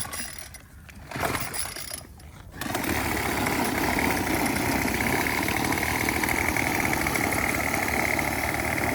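Weed eater (string trimmer) engine powering a kayak being started: a couple of short sputtering bursts, then it catches a little under three seconds in and runs steadily with a high-pitched whine.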